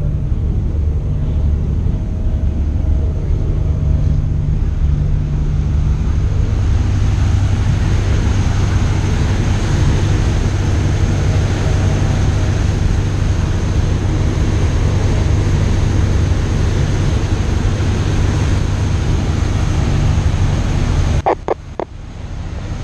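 Boat under way: a steady low engine hum mixed with rushing water and wind on the microphone. The sound drops away suddenly near the end, followed by a few short clicks.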